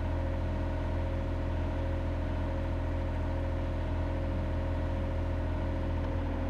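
John Deere 35G mini excavator's diesel engine idling steadily.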